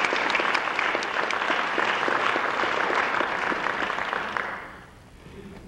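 Audience applauding, fading out about four and a half seconds in.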